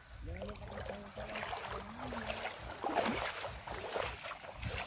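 Shallow seawater splashing and sloshing, with a low wind rumble on the microphone. The splashing gets stronger from about halfway in, and faint distant voices come through in the first half.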